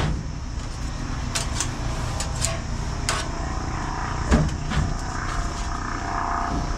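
Light clicks and clinks of utensils and food being handled on a steel worktop, a few in a row about a second and a half in and a heavier knock around four seconds, over a steady low background hum.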